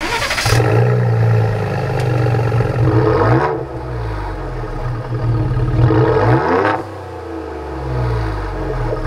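Ford Bronco EcoBoost engine through a Corsa Performance cat-back exhaust, idling and revved twice: the pitch climbs about three seconds in and again near six and a half seconds, each time settling back to idle.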